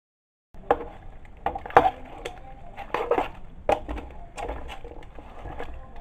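Metal spoon stirring a pot of leafy afang soup, knocking and scraping against the side of the pot in irregular clatters every half second or so, starting about half a second in.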